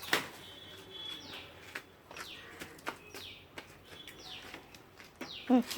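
A bird calling over and over, a short high note that falls quickly, about once a second.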